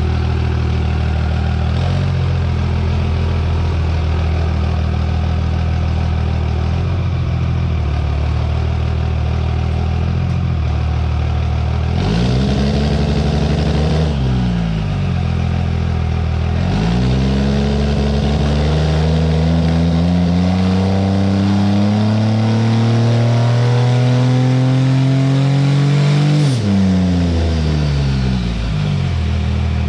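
Cummins diesel drag truck engine idling, revved up and straight back down once about twelve seconds in, then revved in a slow, steady climb for about ten seconds before dropping back to idle.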